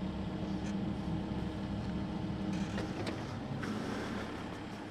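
Diesel engine of a Cat 308E2 mini excavator running steadily at idle, its low hum dropping off after about three seconds, with a few light clicks.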